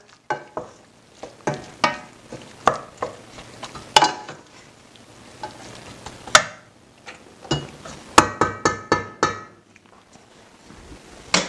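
Wooden spatula stirring beans and greens in a stainless steel sauté pan: irregular knocks and scrapes of the spatula against the pan, with a quicker run of knocks near the end.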